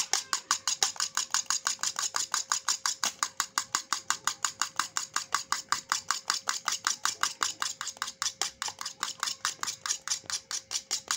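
Metal fork beating a thin egg-and-milk mixture fast in a plastic bowl by hand: rapid, even clicks of the tines against the bowl, about seven a second, as the mixture is whisked until it foams.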